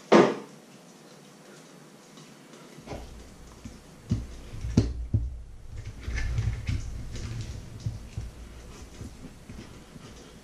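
Kitchen handling sounds: a single loud knock at the very start, then a low rumble with scattered light knocks and taps as a block of butter in its foil wrapper is cut with a knife on a wooden board.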